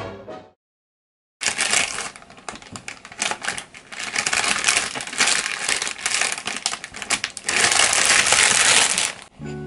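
Rapid, irregular clicking and rustling of things being handled, with a louder, more continuous rustle about three-quarters of the way through. The tail of a song fades out at the very start, and strummed guitar music begins near the end.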